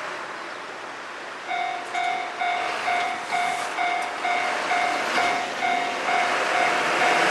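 Japanese railroad crossing warning bell starting up about a second and a half in, repeating one ringing tone a little over twice a second: the crossing's signal that a train is coming. A steady rushing noise underneath grows louder toward the end.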